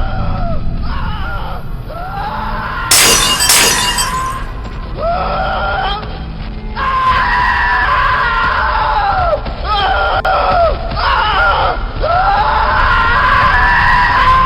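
Loud, distorted screaming that keeps swooping up and falling back in pitch, with a crash of shattering glass about three seconds in.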